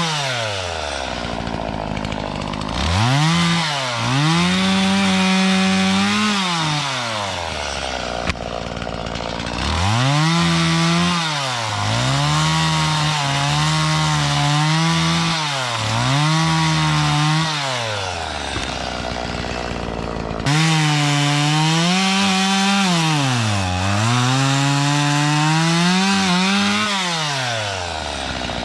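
Stihl chainsaw running at full throttle in long spells, its pitch dipping briefly every second or two. It drops back to idle twice for a few seconds, about a third of the way in and again past the middle.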